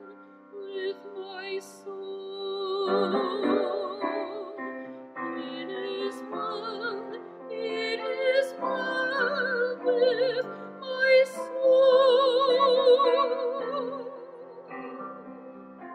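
A woman singing a solo in a classical style with strong vibrato, accompanied by grand piano. Her voice ends near the end and the piano plays on alone.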